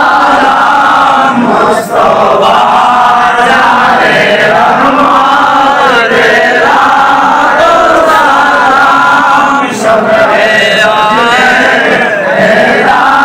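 A group of men chanting Islamic devotional verses together in a milad, loud and unbroken, with brief pauses for breath about two seconds in and near ten seconds.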